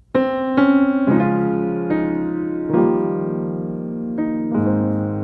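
Background music: a slow piano melody with sustained chords, starting just after the opening.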